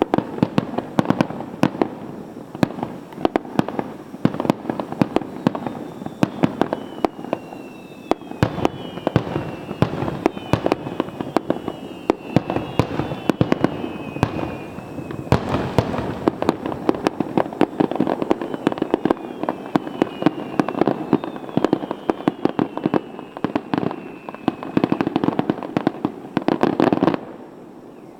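Fireworks display in a dense barrage: many sharp cracks and bangs a second over a rolling rumble, with high whistles that fall in pitch. The volley cuts off suddenly near the end.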